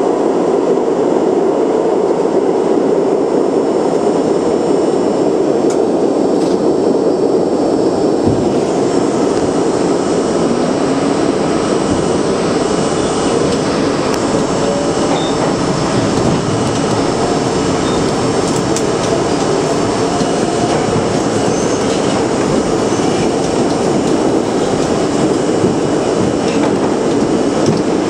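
New York City subway train running through a tunnel, heard from inside the car: a steady loud rumble of wheels on rail, with a motor whine rising in pitch about ten to sixteen seconds in as the train gathers speed.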